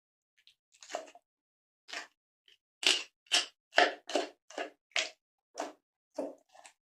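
A knife working on a raw fish: a run of short, crisp crunching strokes, about two a second, with silence between them.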